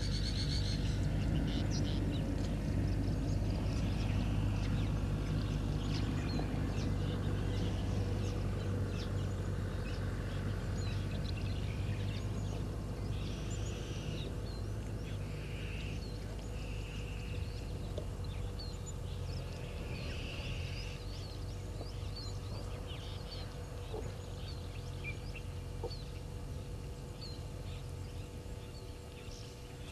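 Waterhole bush ambience: many small birds chirping, with a few longer bird calls around the middle, over steady low background noise.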